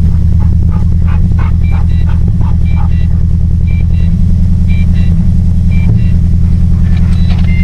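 Holden VT Commodore V8 idling just after a cold start: a loud, steady, even rumble. Short high chirps come and go over it.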